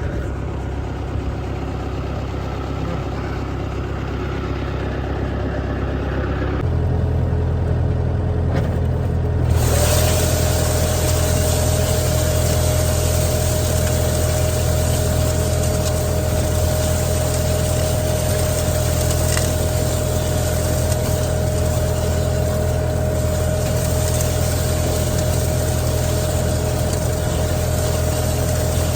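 Engine of the vehicle towing a seed drill, running steadily. About seven seconds in its note changes and it gets louder, and about ten seconds in a steady whine and a broad hiss join in and carry on as it pulls the drill across the field.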